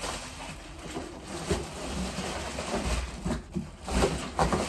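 Plastic packaging wrap and cardboard rustling and crinkling in irregular bursts as contents are pulled out of a shipping box, with a few soft knocks.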